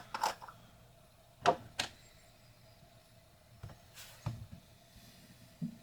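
A handful of light clicks and knocks, spaced out, from small beard-care product containers being handled and opened; the sharpest comes about a second and a half in.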